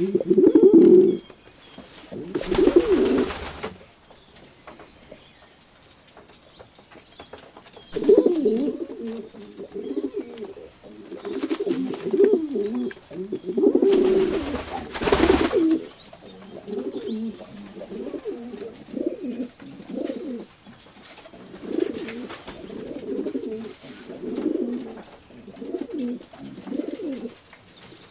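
Pigeons cooing in repeated low, warbling phrases, with a pause of a few seconds early on. Two short rustling bursts, one a couple of seconds in and one about halfway through, stand out above the cooing.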